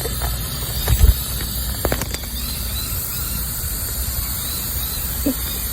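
Steady hiss of water spraying in a shower, with a few short knocks about one and two seconds in.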